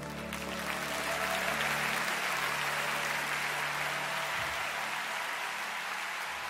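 Audience applauding at the end of a live worship song, with the band's last low held chord fading out beneath it about four seconds in.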